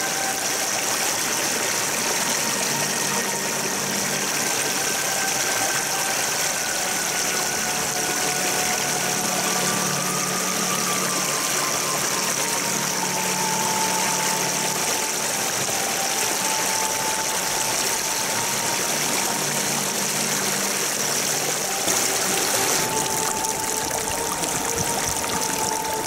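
Small stream running over stones, a steady rush of water. Faint low held tones come and go underneath it every few seconds.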